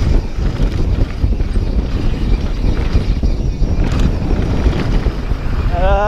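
Wind buffeting the microphone at riding speed during a mountain bike descent, with the clatter of the bike over the wet trail beneath it. Right at the end a rider lets out a short shout that rises and falls.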